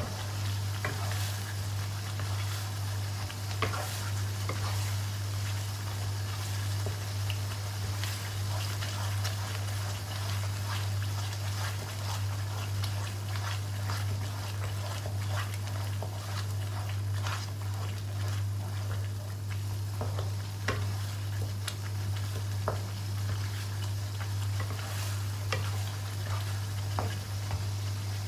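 Blended chili paste frying in oil in a wok, sizzling with scattered small pops, and a wooden spatula stirring through it, over a steady low hum.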